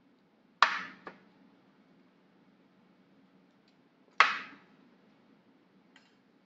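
Metal fork striking the metal baking tray while pulling apart roast chicken: a sharp clink about half a second in, a lighter tap just after, and another clink about four seconds in, each ringing briefly.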